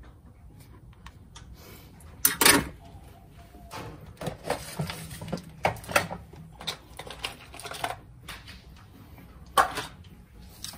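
Irregular clicks and clatter of small hard tools and parts being handled and set down, with a louder knock about two seconds in, a quick run of clicks in the middle and another knock near the end.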